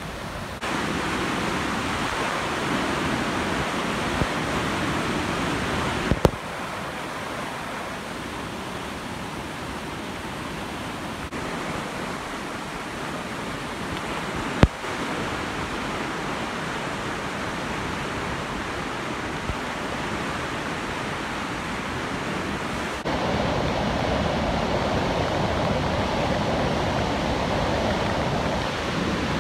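Rushing floodwater of a swollen river in flood: a steady noise of fast, churning water, stepping up or down in level and tone at edits about half a second, six and twenty-three seconds in. Brief clicks near six and fifteen seconds in.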